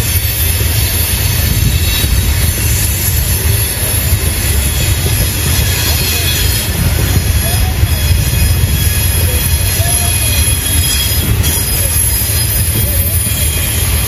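A train rolling past on a sharp curve: a steady low rumble from the wheels and cars, with high, thin wheel squeal from the flanges grinding against the rail on the curve.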